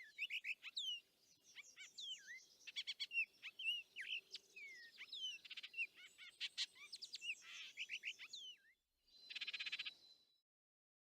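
Songbirds singing, a dense mix of short whistled notes sliding up and down and quick chirps from more than one bird. After a brief break near the end comes a short, rapid buzzing trill.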